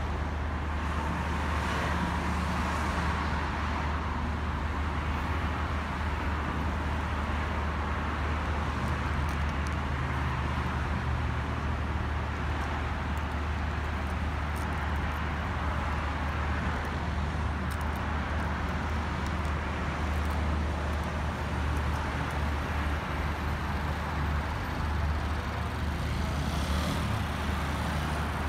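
Steady distant road traffic: a continuous city hum with a strong low rumble, even throughout.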